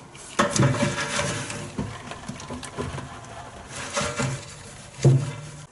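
Irregular clicks, knocks and rattles of hand work on a classic Mini's rear fuel tank and its feed pipe as the tank is disconnected. The loudest knocks come just after the start, about four seconds in, and near the end.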